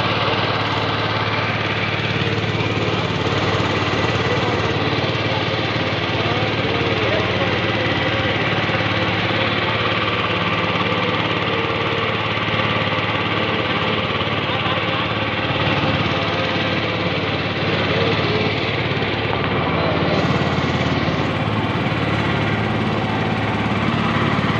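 A river boat's engine running steadily at a constant speed, a low even drone, with water rushing along the hull.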